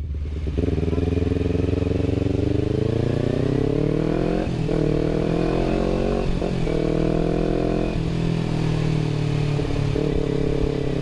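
Kawasaki Ninja 250 FI parallel-twin engine running through a DX Generation RVR Short aftermarket exhaust while riding. The revs climb steadily, then dip briefly about four times as it shifts up through the gears.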